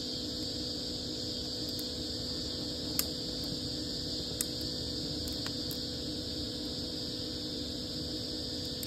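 Wood fire burning in an outdoor fireplace, with a few sharp single crackles from the logs: one about three seconds in, others a second or two later, and one at the end. A steady hum and a high hiss run underneath.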